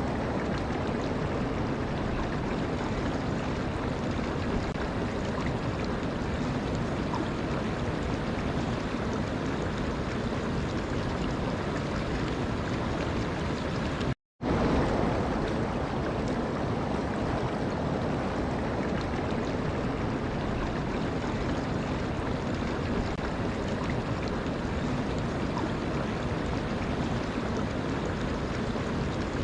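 Flowing water rushing steadily in an even wash of noise. It breaks off into silence for a split second about halfway through.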